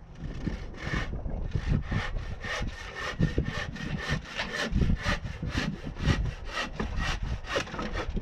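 Hand saw cutting through a wooden timber in steady back-and-forth strokes, about three a second, starting about half a second in.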